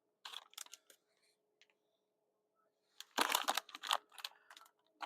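Packaging being handled: a few short crinkles and clicks, then a denser run of crackling about three seconds in, followed by a few more light clicks.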